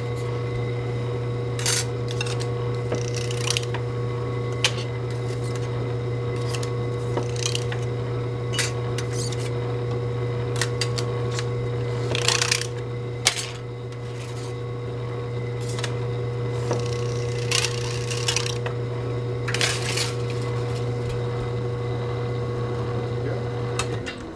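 Motorized embossing-roller machine running with a steady low hum, stamping a brick pattern into thin copper sheet. Scattered clicks and short rustles come from the sheets being handled and fed between the rollers. The hum stops near the end.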